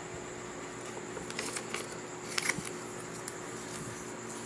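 A paper instruction sheet being handled and set aside: a few soft rustles and clicks about one and a half to two and a half seconds in, over a faint steady hum.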